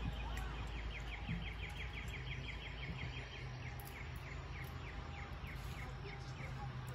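A bird calling a long run of short, falling chirps, fast at first, then slowing and fading away, over a steady low hum.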